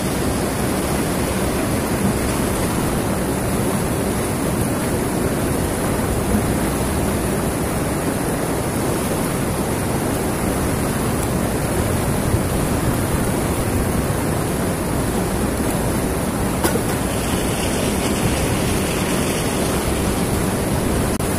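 Fast-flowing river rushing over rocks and rapids: a loud, steady wash of white-water noise.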